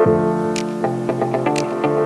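Background music: a sustained synth pad with a steady electronic beat and hi-hat ticks kicking in at the start.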